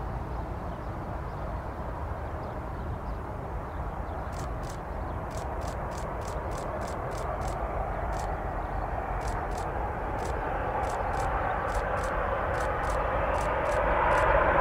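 Boeing 787 jet engines heard across the airfield as the airliner lands and rolls out on a wet runway: a steady rumble that grows steadily louder through the second half.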